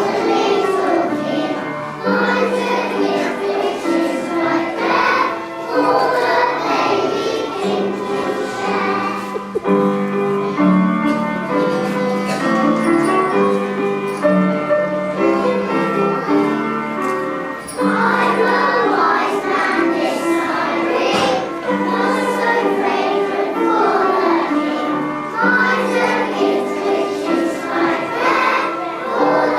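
A children's choir singing a Christmas song, with held notes and short breaks between phrases.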